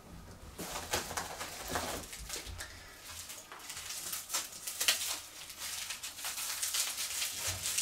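Crinkling and rustling of wrapping as a small crystal is unwrapped by hand: irregular crackles that start about half a second in and keep going.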